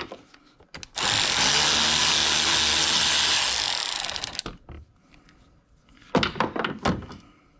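Power tool running in reverse for about three and a half seconds, spinning a nut off the battery terminal clamp, with a steady motor hum under a bright whir. A few sharp metallic clicks and knocks follow near the end as the loosened terminal is handled.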